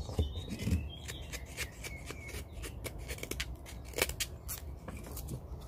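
Serrated blade of a Leatherman Signal multitool cutting: a run of quick, irregular, crisp snicks, with a sharper one about four seconds in.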